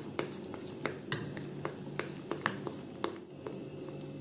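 Fork clicking against the side of a bowl while stirring palm pulp into flour for a thick batter, irregular sharp ticks about three or four a second over a faint steady room hum.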